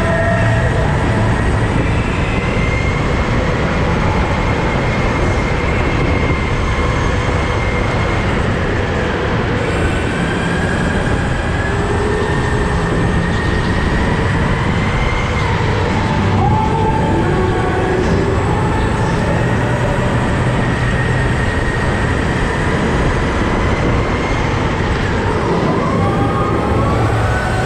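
Go-kart engines running hard, their whine rising and falling in pitch as the karts speed up and slow down, over a steady loud rumble.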